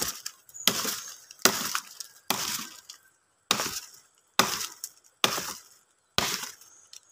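Dual-blade tomahawk axe chopping into a thin tree trunk: about eight sharp strikes, roughly one a second, each with a short bright ring.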